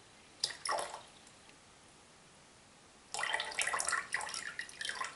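Water poured from a plastic jug into a plastic pitcher, topping it up to weight on a scale. There is a short splash about half a second in, then a steadier, uneven pour from about three seconds in.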